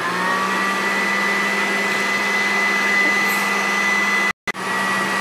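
Countertop blender running at full speed, chopping fresh broadleaf and fine leaf thyme in a little water. Its motor whine rises to pitch just at the start and then holds steady, with the sound cutting out for an instant about four seconds in.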